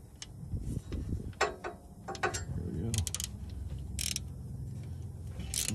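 Hand ratchet on a socket extension clicking in short, irregular bursts as it is swung back and forth, loosening a 15 mm starter mounting bolt.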